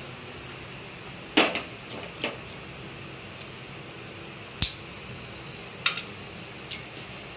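A handful of sharp, separate clicks and light knocks as whole spices (cinnamon sticks, cardamom, cloves) and their small bowl are handled over an aluminium pressure cooker. The loudest click comes about a second and a half in and rings briefly.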